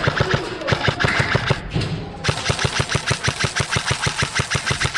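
Airsoft guns firing: scattered shots for about two seconds, then a sustained full-auto burst of about ten shots a second.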